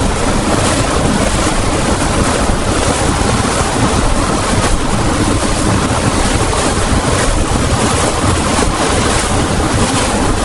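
Ship under way at sea: a steady rush of water and wind with a low rumble beneath, and no horn.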